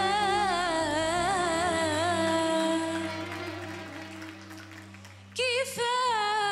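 A woman singing an Arabic ballad with strong vibrato over a soft instrumental backing. Her held note fades away about three seconds in, and near the end she comes back in with a new phrase that slides into pitch.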